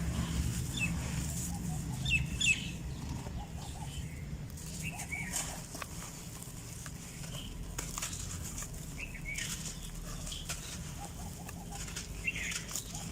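Chickens clucking, with short scattered calls, over a steady low rumble and a few faint clicks.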